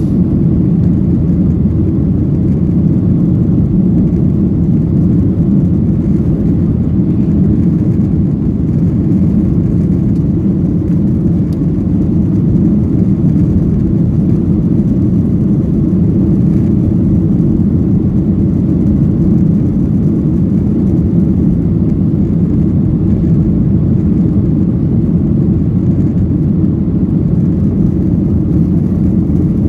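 Boeing 737-800 cabin noise: a loud, steady, low rush from the CFM56-7B engines and airflow, unchanging throughout.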